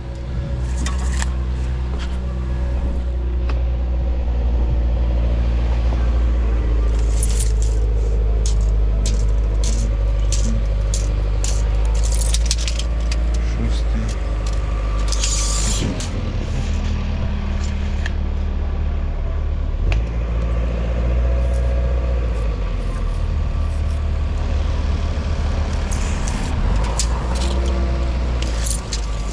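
An engine running steadily with a low rumble, with frequent clicks and rattles over it.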